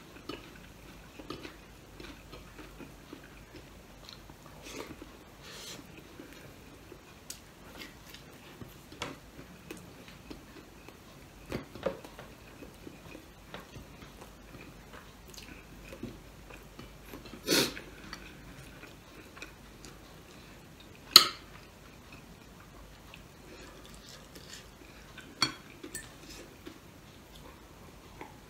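Close-up eating sounds of a person chewing food eaten by hand, with soft mouth clicks and smacks and light clinks of plates. Two louder sharp clicks stand out, about two-thirds of the way through.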